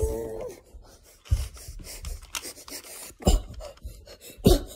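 A short strained vocal grunt, then rubbing and scraping with a few sharp knocks from a plastic action figure being handled close to the microphone.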